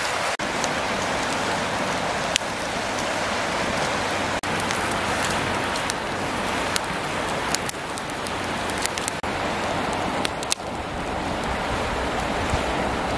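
Fast-flowing river rushing steadily, with a few sharp clicks scattered through.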